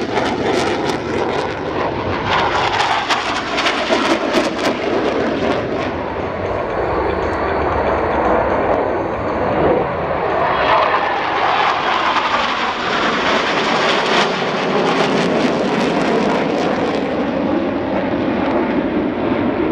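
Jet noise from T-50 Golden Eagle jets, each powered by a single F404 turbofan, flying a display pass. It crackles through the first six seconds, then becomes a steady rushing noise that swells and shifts in pitch about ten seconds in as the formation goes by.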